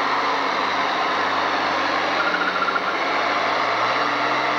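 Turbocharged diesel engine of an International Harvester farm-stock pulling tractor running steadily at full throttle under heavy load as it drags the weight-transfer sled.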